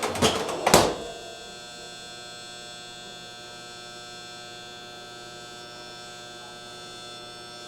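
A few sharp knocks in the first second as the fridge's cool control is turned on, then the Jenn-Air refrigerator's compressor humming steadily, a buzzy hum with many tones. The fridge is not cooling, and the fault is traced to the compressor's combination start relay.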